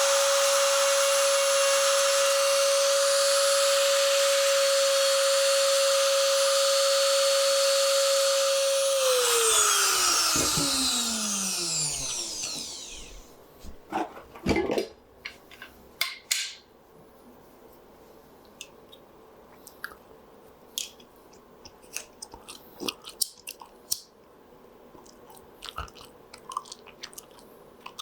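High-speed rotary tool running steadily with a high whine, grinding on the rifle's wooden stock. About nine seconds in it is switched off and its pitch falls as it spins down, and then only light clicks and handling knocks follow.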